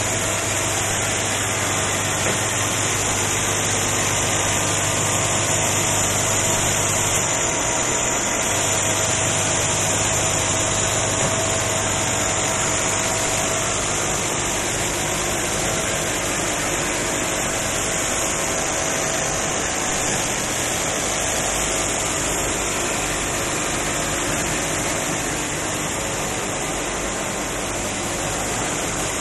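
Steady drone of nail-factory machinery running, with a low hum that weakens about halfway through.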